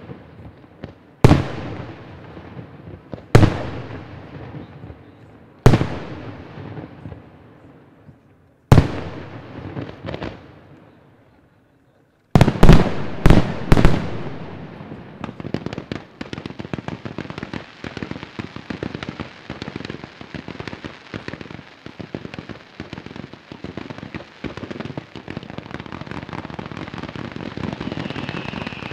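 Fireworks display. Single aerial shells burst about every two to three seconds, each bang echoing away. About twelve seconds in comes a quick salvo of several loud bangs, followed by dense, continuous crackling of many small reports, with a high steady whistle joining near the end.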